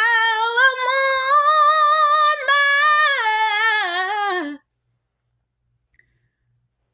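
A woman's voice singing unaccompanied in gospel style, holding a long wordless line with vibrato that steps up in pitch and then falls away. It cuts off abruptly about four and a half seconds in.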